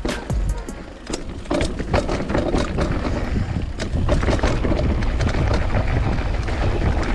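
Mountain bike riding fast down rocky, rooty trail: tyres and bike clattering with many sharp knocks over a steady low wind rumble on the microphone, louder from about a second and a half in.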